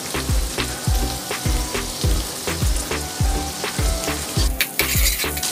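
Sliced onions and curry leaves sizzling in hot oil in a steel kadai, over background music with a steady beat.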